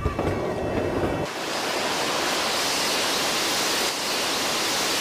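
A steady, loud rushing hiss sets in abruptly about a second in and holds evenly. It fits the A380's emergency evacuation slides inflating from their gas bottles as the exit doors are opened.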